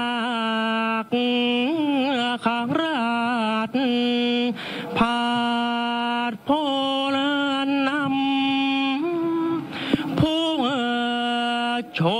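A solo voice chanting the Thai royal barge song (kap he ruea) in long held notes that slide up and down between pitches, with short breaks between phrases.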